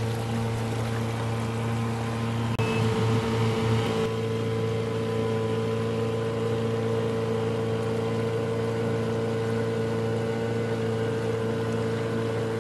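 Outboard motor of a Catalina 22 sailboat running at a steady cruising speed, a constant even hum that holds one pitch, with the hiss of the hull moving through calm water.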